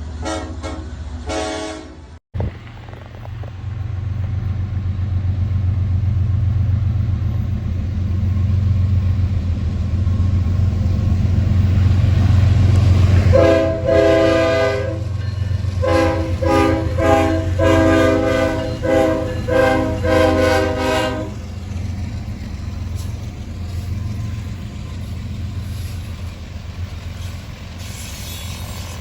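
Intermodal freight train passing: the diesel locomotive rumbles steadily while its air horn gives a few short blasts at the start and, midway through, one long blast followed by a string of short ones.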